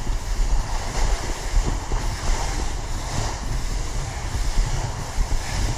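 Skis sliding and scraping over spring corn snow, a hiss that swells and fades several times, with wind buffeting the microphone as a low rumble.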